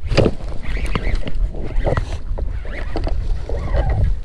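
Hooked bass splashing at the surface beside a fishing kayak, with wind buffeting the microphone and scattered short knocks and clicks throughout.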